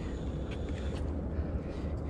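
Wind buffeting the body-worn camera's microphone as a steady low rumble, with a few faint ticks over it.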